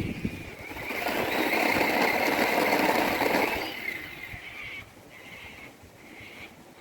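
A motor engine passing by: its noise swells over the first second, holds, then fades away by about five seconds in. A thin, steady high chirring runs underneath.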